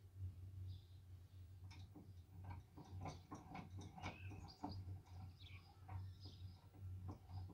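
Faint scattered ticks and clicks with a few bird chirps, over a steady low hum.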